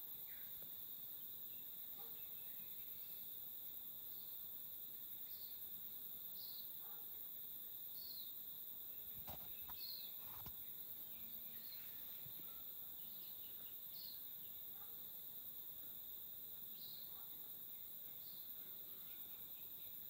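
Faint, steady high insect trilling, with short chirps about once a second. Two brief knocks about halfway through.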